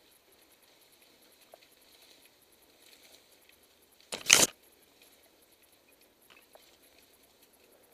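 Ferns and undergrowth brushing across the camera, one short loud rustling swish about four seconds in, over faint scattered ticks.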